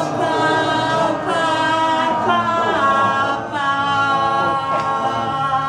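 A woman singing a cappella without words, in long held notes that change pitch every second or so.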